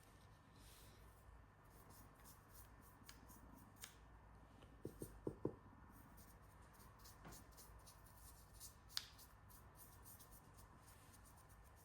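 Very faint scratching of a paintbrush working paint over a 3D-printed figure, with scattered small clicks of handling, and a quick run of four light knocks about five seconds in.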